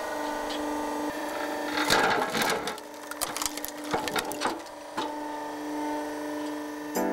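Posch SplitMaster 9-tonne horizontal log splitter running with a steady hum while it splits a log. The wood cracks apart about two seconds in, the loudest moment, followed by scattered knocks as split pieces fall.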